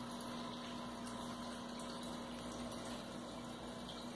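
Aquarium filter pump running: a steady low hum under a constant wash of moving water.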